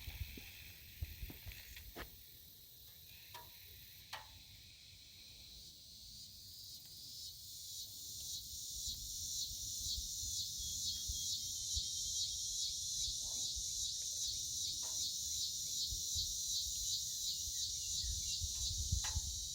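Insects chirring in a dense, fast-ticking high chorus that swells from about six seconds in and then holds steady, over low wind rumble on the microphone and a few light clicks near the start.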